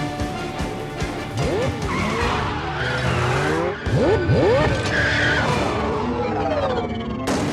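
Film car-chase sound mix: car engines revving in rising and falling sweeps, with tyres squealing, under a music score.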